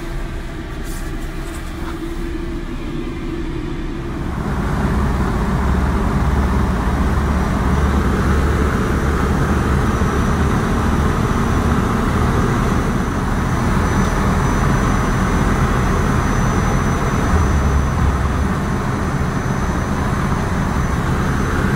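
Cabin sound of a 1968 Mercedes 280SE coupe with its straight-six engine cruising at highway speed: a steady rumble of engine, tyre and wind noise. It gets louder about four seconds in, and a faint high thin tone joins in the second half.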